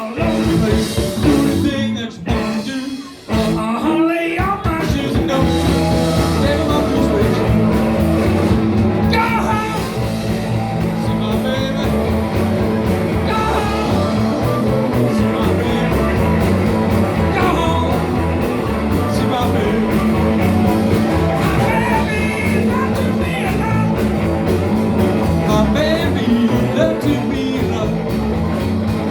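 Live band playing rock and roll with singing. A few short stop-start breaks in the first seconds, then a steady full-band groove.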